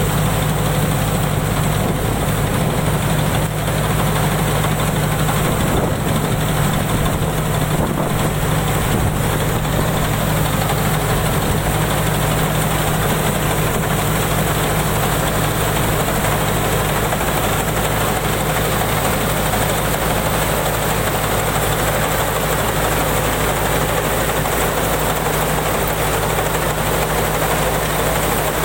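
Rice combine harvester's engine and machinery running at a steady, even drone, with no change in pace.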